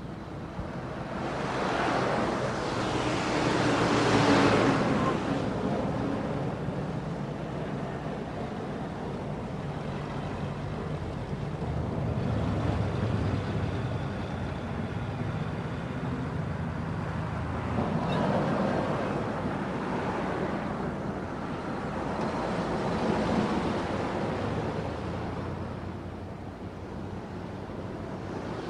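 Street traffic: cars driving past with engine and tyre noise over a low hum, swelling loudest a few seconds in and again about two-thirds of the way through.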